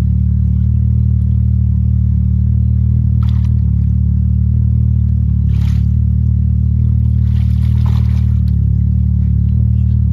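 Steady low drone of an engine running at an even speed, with a few short noises about three, six and eight seconds in.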